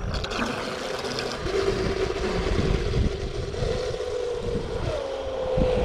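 Traxxas M41 RC catamaran speed boat's electric motor whining at easy throttle on a 6S battery, a steady tone that drops and climbs again as the throttle changes, with a short rise near the end. Wind rumbles on the microphone underneath.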